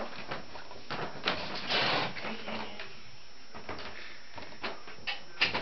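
Scattered knocks and rustles of footsteps and camera handling as someone walks down a wooden staircase, with a brief rushing noise about two seconds in.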